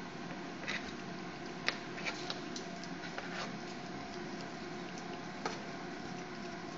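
Light clicks, taps and rustles, about half a dozen, from a kitten pawing and biting a fluffy toy on a hard floor, over a steady hiss.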